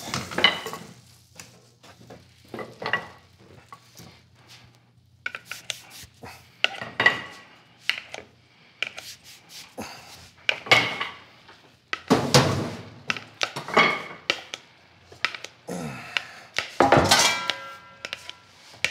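Irregular kitchen clatter: a sauté pan, its lid and utensils knocking and scraping against each other, with a short metallic ring near the end.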